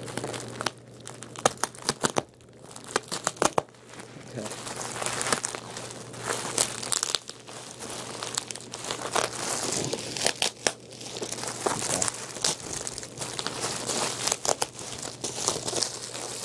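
A plastic-wrapped parcel bound in black tape being pulled open by hand: continuous crinkling and crackling of the plastic, with sharp rips as the tape is torn.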